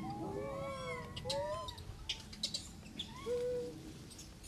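Rhesus macaques calling: scattered short rising-and-falling coos, with a few brief sharp high chirps between about one and three seconds in.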